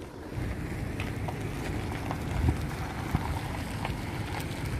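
Outdoor background noise: a steady low rumble with a few faint clicks.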